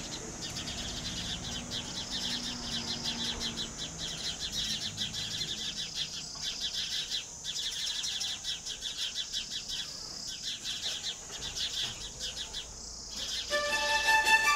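A flock of sparrows chirping in a dense, fast chatter with a few short pauses. Music with held notes comes in near the end.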